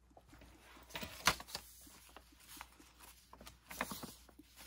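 Paper pages of a handmade junk journal being handled and turned: soft rustling with a few light taps and flicks, the sharpest about a second in.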